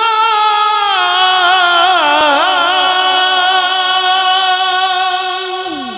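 A male qari's voice through a microphone holding one long melismatic note in tajweed-style Quran recitation, drawing out the end of 'li-kalimatillah'. About two seconds in the pitch wavers in a trill, then the note is held steady and slides down and fades near the end.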